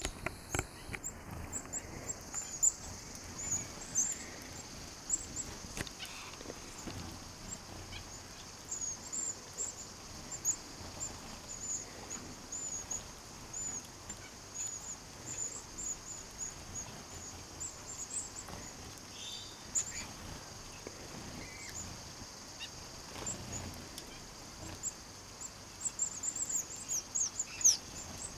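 A flock of red-browed and double-barred finches at a seed feeder calling with many short, high, thin chirps, thickest near the end, over a steady high hiss. A few faint taps and flutters.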